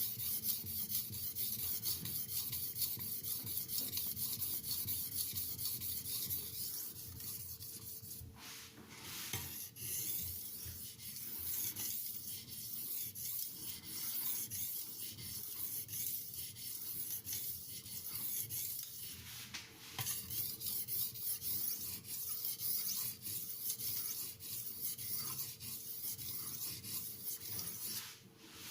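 Steel knife blade being stroked back and forth on a fine aluminium oxide waterstone (FEPA 1500 / JIS 6000), a steady scratchy rasping with brief pauses about eight and twenty seconds in. The edge is being worked mainly to test the stone and its scratch pattern.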